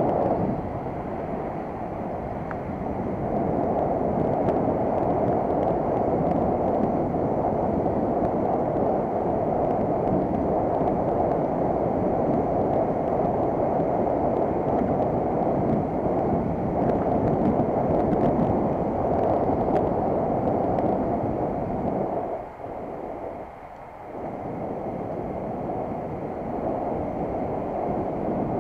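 Wind rushing over the microphone of a bicycle-mounted camera while riding, mixed with tyre and road noise, steady throughout. It drops for a second or so a little past two-thirds of the way through.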